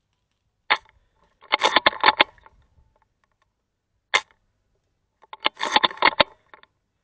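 Scoped airsoft sniper rifle firing twice, each shot a single sharp crack, about three and a half seconds apart. Each shot is followed about a second later by a quick run of rattling clicks from the bolt being worked.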